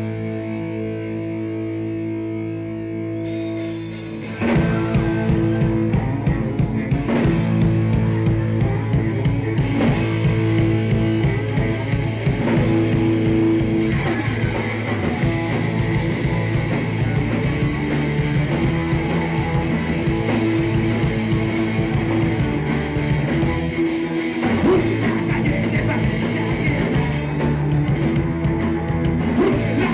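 Live punk rock band: electric guitars hold a ringing chord for about four seconds, then the drums and the full band come in together.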